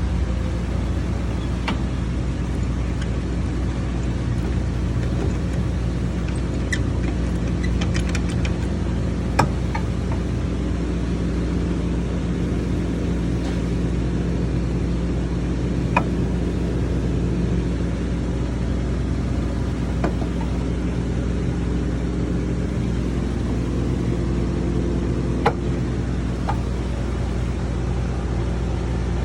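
A car engine running steadily at an even idle, with a few sharp clicks now and then.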